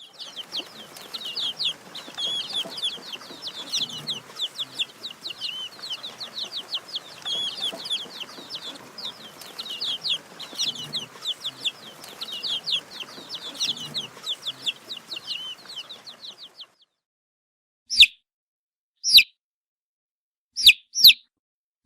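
A brood of chicks peeping, many short high calls overlapping in a continuous chorus. After a brief silence near the end, a single chick gives five loud separate peeps.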